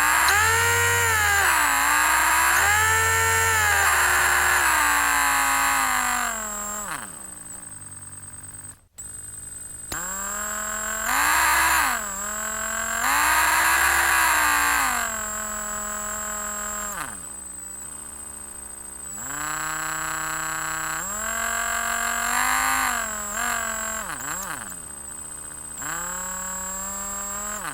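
Electric drill motor run in a series of trigger pulls. Its whine rises in pitch as it speeds up, shifts up and down with the trigger, and winds down between runs. There is a brief cut-out about nine seconds in.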